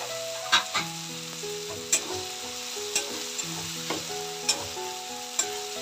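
Tomatoes and onions sizzling in oil in a steel kadai while a steel spatula stirs and scrapes them, with repeated sharp clinks of the spatula against the pan.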